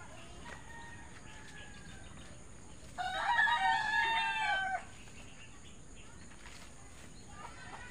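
A rooster crowing once, loudly, about three seconds in; the crow lasts nearly two seconds. Fainter calls sound before and near the end.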